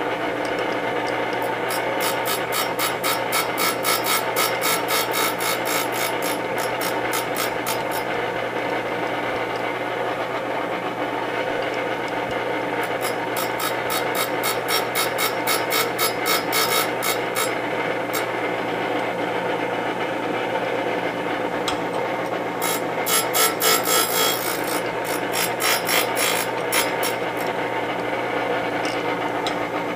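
Delta-Rockwell grinder's wheel running with a steady motor hum, and three stretches of rapid, rhythmic rasping as the wheel grinds a threading tool on each pass of the table.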